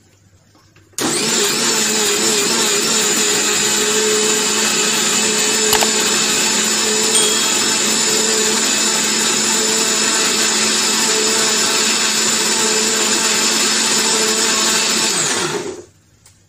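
Boss mixer grinder's motor running steadily at high speed, grinding soaked sesame seeds into tahini paste. It starts abruptly about a second in and winds down as it cuts out near the end.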